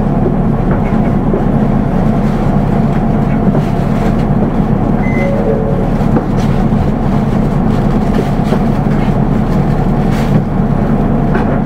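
Diesel engine of a Nissan Diesel Space Runner RA city bus running steadily, with a constant low hum.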